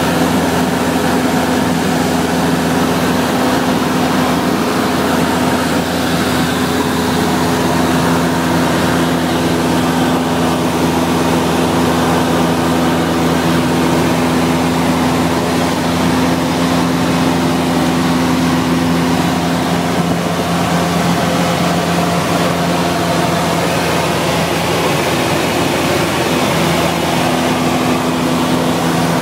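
Cabin noise of a Cessna 172SP in flight: its four-cylinder Lycoming engine and propeller make a steady drone with the rush of air over the airframe. The hum shifts slightly about twenty seconds in, then settles again.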